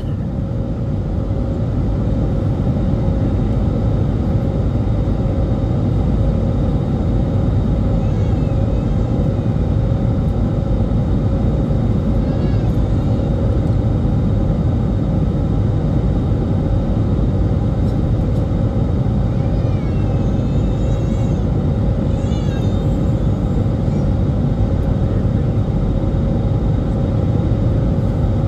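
Airbus A320neo jet engines and airflow heard from a cabin seat over the wing during climb after takeoff: a steady, even rumbling noise with a constant tone running through it.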